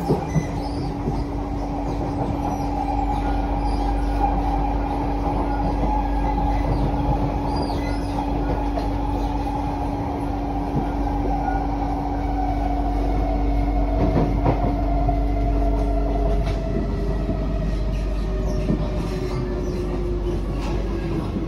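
Inside a Kawasaki–CSR Sifang C151A MRT electric train car running between stations: a steady low rumble from the wheels on the rails, with an electric motor whine that slowly falls in pitch as the train eases its speed. A steady hum sounds along with it and stops about sixteen seconds in.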